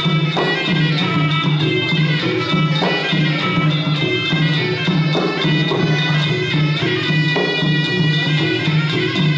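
Traditional Kun Khmer ring music: a reedy wind instrument holding a winding melody over a steady, repeating drum beat, with small cymbals or jingles keeping time.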